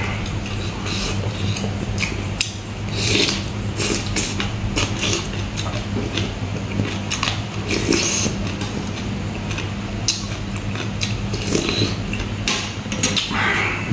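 Close-miked chewing and lip-smacking of a spicy salmon and papaya salad, with many short wet mouth clicks and a few longer wet, hissy slurps. A steady low hum runs underneath.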